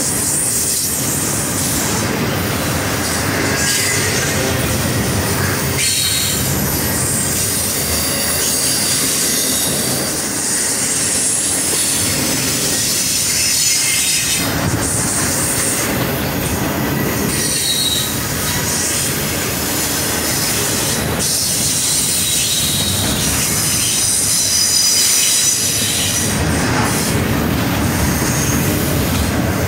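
Double-stack intermodal freight train rolling past at close range: a steady rumble and clatter of wheels on rail, with high-pitched wheel squeal that comes and goes.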